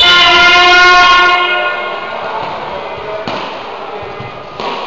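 Sports-hall timing horn sounding one steady, loud blast of about two seconds, which dies away in the hall's echo as a cycle-ball match restarts. Two knocks follow, about three and four and a half seconds in.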